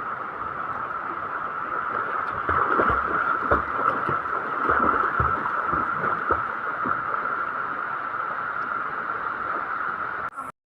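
River water rushing steadily, with irregular splashing from swimmers, busiest a couple of seconds in.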